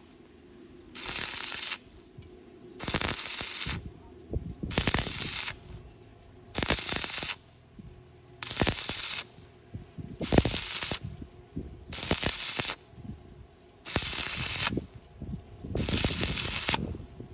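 Electric arc welding done in short stitches: the arc is struck and crackles for just under a second, then breaks, about every two seconds, nine times, as a deep slit is filled bit by bit.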